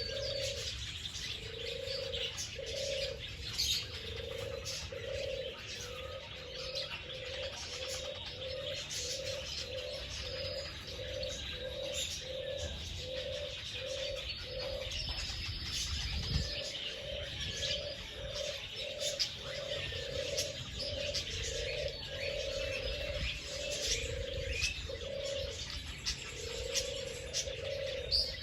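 Doves cooing in a long steady series of low notes, about two a second, pausing briefly about halfway through, over the dense chirping of many small birds.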